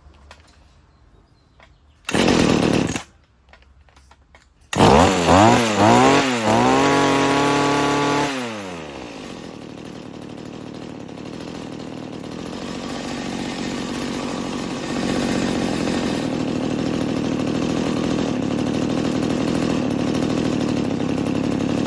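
Mantis tiller's small two-stroke engine running after a carburetor rebuild: a short burst of running, then it runs again, revving up and down several times, holds high, drops back about 8 s in and idles steadily, the idle rising a little about halfway through as the idle screw is adjusted.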